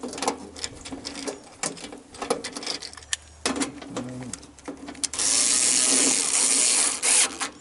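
Ratcheting socket driver clicking in short strokes as it tightens a cover screw. About five seconds in comes a loud, steady rasp lasting about two seconds.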